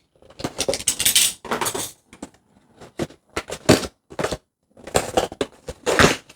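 Windowless cardboard action-figure box being handled and opened: irregular rustling, scraping and rattling in several short bursts.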